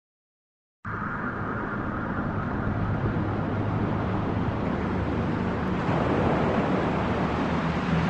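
Steady background noise with a low hum, like traffic, cutting in abruptly just under a second in.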